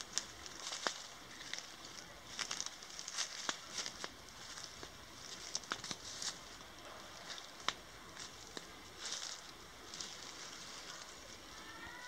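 Footsteps and brushing through forest undergrowth: irregular crackles and rustles of leaves and twigs, with a few sharp snaps.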